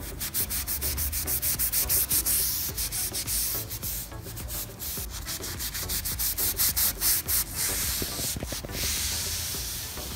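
Rubber door seal of a Jeep Renegade being scrubbed by hand with a wet cleaning solution: quick, repeated rubbing strokes, with a couple of short pauses. The dirt on the seals is what makes the doors creak.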